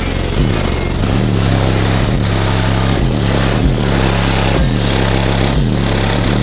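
Car audio system playing bass-heavy music at very high volume through two Sundown Audio ZV5 15-inch subwoofers on a Sundown SALT 6,000-watt amplifier. Deep bass notes slide down in pitch about once a second over a steady beat.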